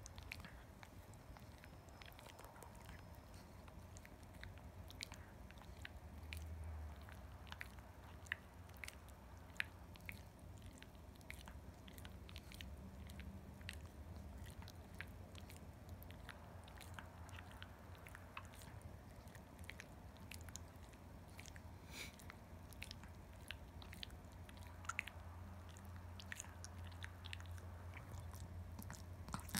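Pekingese dog gnawing a hard chew treat: faint, irregular clicks and crunches of teeth on the stick.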